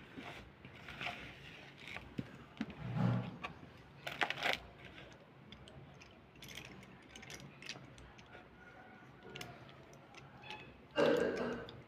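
Sticks of slate pencil clicking and clattering against each other in a hand, with soft rustling of fingers in a bowl of slate-pencil powder and crumbs. There are scattered light clicks throughout and a louder, brief rustle near the end.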